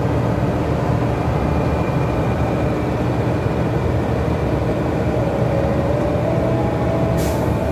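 Steady low road and engine rumble heard from inside a moving vehicle's cabin.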